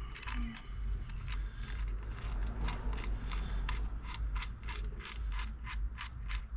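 Hand ratchet clicking in a fast, even run of short metallic clicks, about four a second, as a Loctited bolt is wound in.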